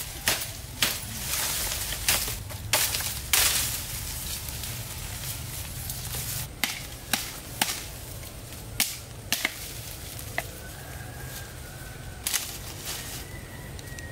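Machete chopping thin green bamboo stalks: about a dozen sharp chops, some single and some in quick groups of two or three.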